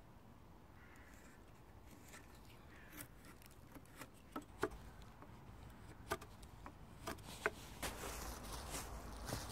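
A knife blade working at a joint between wooden poles gives a handful of sharp clicks and snicks. Near the end, footsteps rustle through dry fallen leaves.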